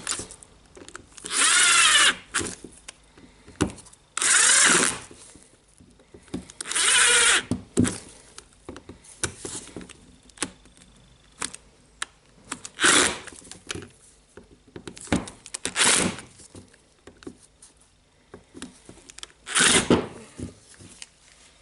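Power screwdriver running in bursts, driving in the gear housing screws of an angle grinder: three runs of about a second each, then several shorter bursts as the screws are snugged tight, with small clicks and handling knocks in between.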